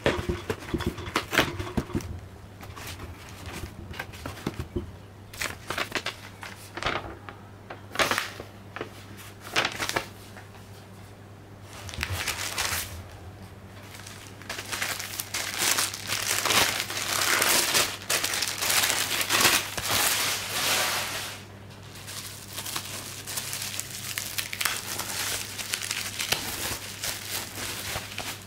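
Unboxing by hand: a cardboard shipping box is handled and cut open with a folding knife, with scattered rustles and clicks. Then a plastic-wrapped package crinkles as it is torn open, busiest from about halfway in. A faint steady low hum runs underneath.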